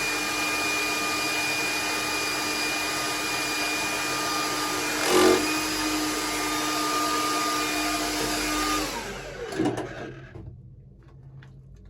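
Hilti TE-700 AVR electric demolition hammer running steadily against rock, with a constant motor whine and a brief louder burst about halfway through. Near the end the motor winds down, its whine dropping in pitch, and the hammer stops.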